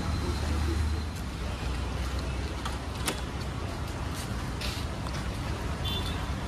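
Street ambience: a steady low rumble of road traffic, with one sharp click about three seconds in.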